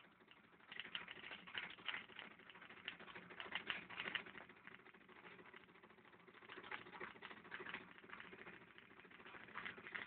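Homemade magnet motor with a coil and switch running: a fast, irregular faint clicking, like rapid typing, that swells and fades every few seconds.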